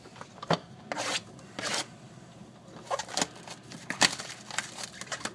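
A knife slitting open a sealed box of trading cards and the cardboard being pulled open: a string of short scrapes, rips and sharp clicks.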